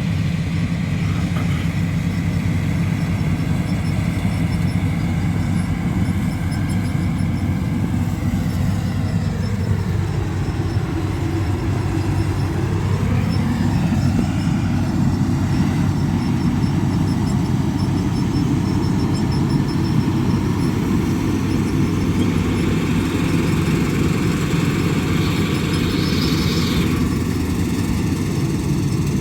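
Combine harvester engine and threshing machinery running steadily while cutting wheat. The drone's pitch sinks and then climbs back about ten seconds in, and a higher whine cuts out near the end.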